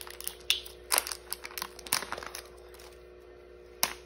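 Toy blind-pack packaging crinkling and crackling in a run of sharp snaps as it is wrestled and cut open, with one more sharp click near the end.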